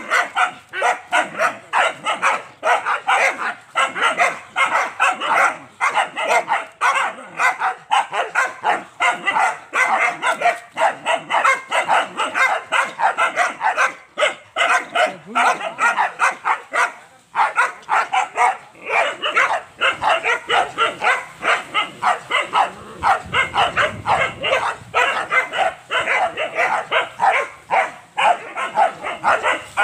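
Young hunting dogs barking rapidly and without letup, about three barks a second, baying at a small animal tied up as training quarry.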